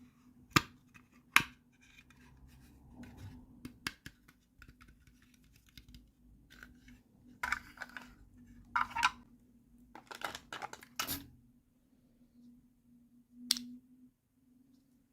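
Hands handling small toy pieces and packaging: a few sharp clicks, then short rasping, scraping bursts, and one more click near the end, over a faint steady hum.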